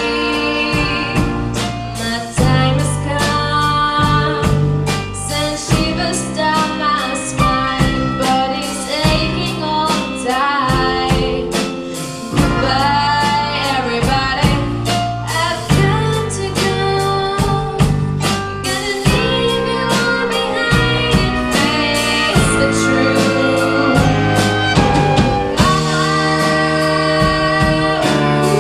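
A live band playing a song with a lead singer, over a steady drum beat and a bass line.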